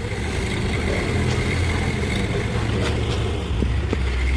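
Heavy diesel machinery engine running steadily with a low drone, with a few light knocks.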